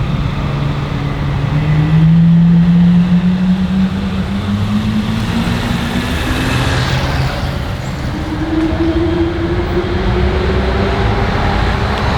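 Loud exhaust of supercars, a Ferrari and a Lamborghini, coming up the street under load. The engine note climbs slowly and steadily in pitch, then a higher note climbs again through the second half.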